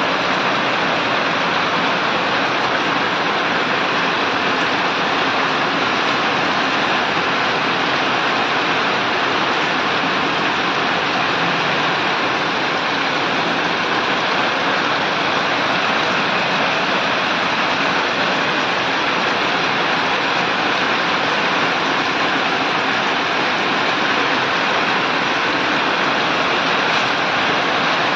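Heavy rain falling steadily on a wet concrete rooftop, a dense, even hiss that does not let up.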